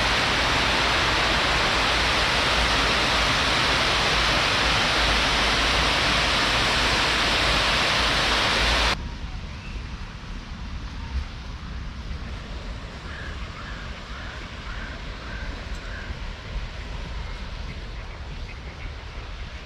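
A loud, steady rushing noise that cuts off abruptly about nine seconds in, leaving a quieter steady outdoor hiss.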